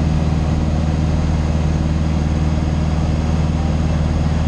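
Light aircraft engine running steadily in flight, heard from inside the cockpit as a constant low drone.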